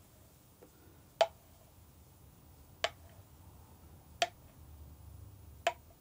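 Four sharp taps or knocks, evenly spaced about a second and a half apart, over a quiet room.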